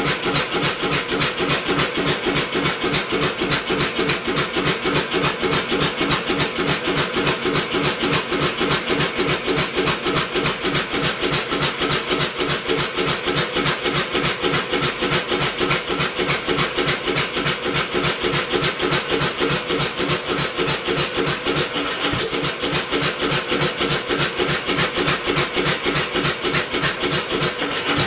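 Homemade four-cycle engine converted from a two-cylinder air compressor, turned over by an electric motor, giving a steady, even, rapid mechanical beat. It is being cranked to start with the ignition on, but is not running on its own; its spark plug was later found soaked with gasoline, so it was misfiring or flooded.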